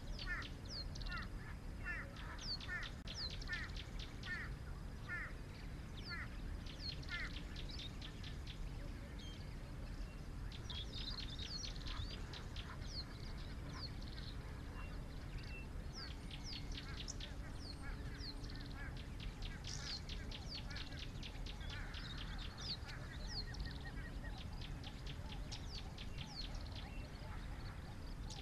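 Several wild birds calling together: rapid runs of short chirps and fast trills overlapping throughout, over a steady low background rumble.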